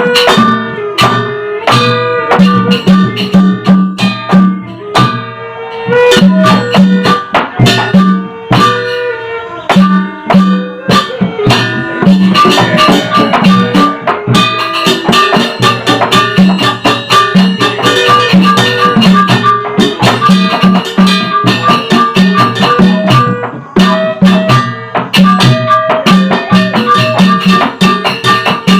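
Sasak wayang gamelan ensemble playing a gending: a dense, continuous texture of rapid struck percussion, with a repeated low drum beat under sustained and gliding melodic lines.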